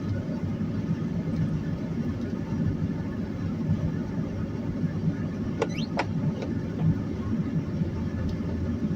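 Steady low rumble of a vehicle driving on a snow-covered, icy road, heard from inside the car, with two brief high squeaks about six seconds in.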